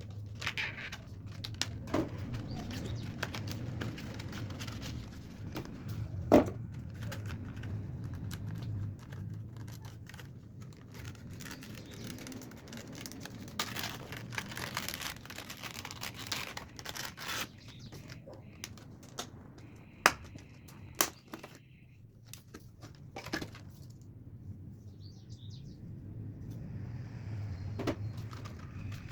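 Packaging being handled: irregular rustling and crinkling with scattered sharp clicks and knocks, over a low steady hum.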